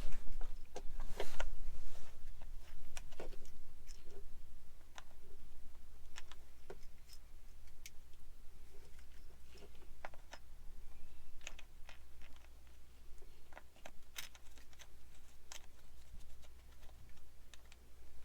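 Scattered clicks and light knocks of hand work with small parts and tools, irregular and sharp, over a low steady hum.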